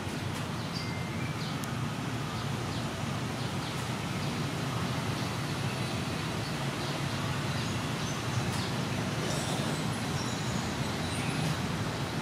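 Outdoor background noise: a steady low rumble, with a few faint short high chirps scattered through it.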